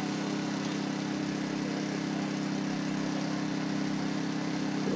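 Engine idling steadily, a low even hum.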